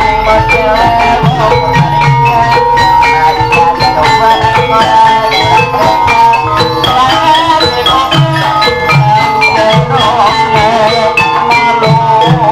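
Javanese gamelan music for a jaranan horse dance: bronze metallophones play a busy run of struck notes over regular kendang drum strokes, with a held, wavering melody line on top.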